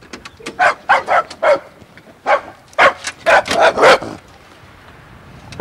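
A dog barking in quick runs of short, sharp barks, about ten in all, stopping about four seconds in and leaving a faint hiss.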